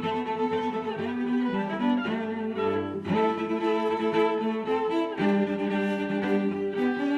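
Background music led by bowed strings, cello and violin, playing long held notes that change every second or two.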